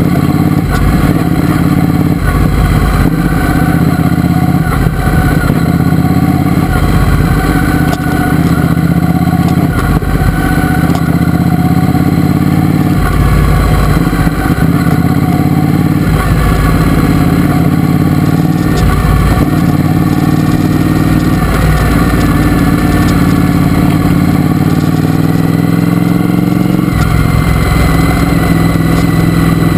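Triumph Speedmaster's parallel-twin engine running under way at city speeds, its note rising and falling with the throttle and shifting in pitch near the end.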